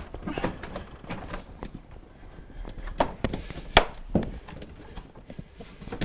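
Plastic back panel of a Samsung refrigerator's fresh-food compartment being pushed into place by hand: an irregular series of knocks and clicks as it snaps in, the sharpest a few seconds in.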